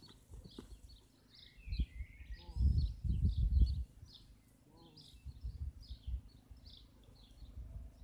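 Songbirds chirping throughout, with dull thuds of a trotting horse's hooves on grass, loudest about three seconds in.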